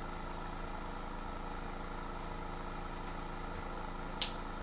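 Small airbrush compressor pump running with a steady hum, and a sharp click about four seconds in.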